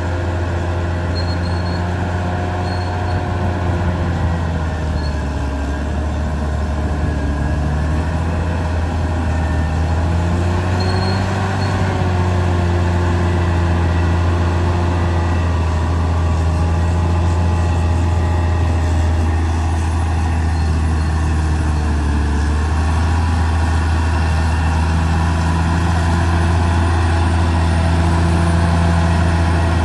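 Caterpillar D6R XL bulldozer's diesel engine running steadily, its pitch rising and dipping slightly at times.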